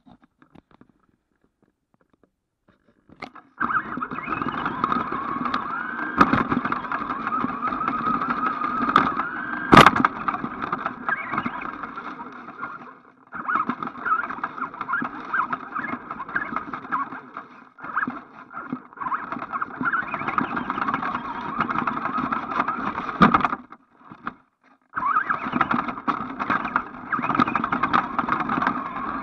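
ECX AMP radio-controlled truck driving, its electric motor and gears whining up and down in pitch with the throttle over the rattle of its tyres on tarmac and grass. It sets off about three seconds in, cuts out briefly a few times, and there is one sharp knock about ten seconds in.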